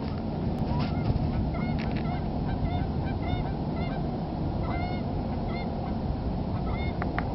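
A couple of geese honking repeatedly as they fly over, a run of short, arched calls.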